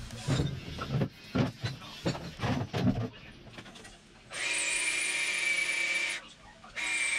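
Several knocks and thumps of objects being handled and set down, then a power drill running in a steady whine for about two seconds, stopping briefly and starting again near the end.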